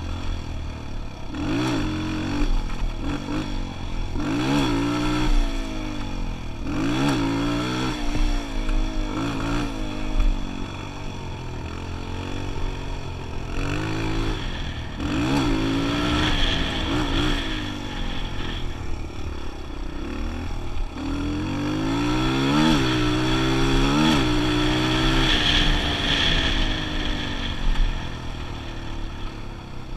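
Kawasaki KLX125 dirt bike's single-cylinder four-stroke engine revving up and down again and again as it is ridden, the pitch climbing and dropping with each twist of the throttle and change of gear, over a low rumble of wind.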